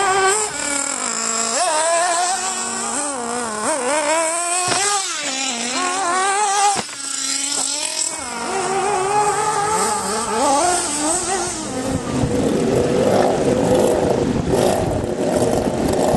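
Small engine of a radio-controlled model car revving up and down as it drives. About twelve seconds in, a rougher, steadier engine sound takes over: a radio-controlled model boat running on the water.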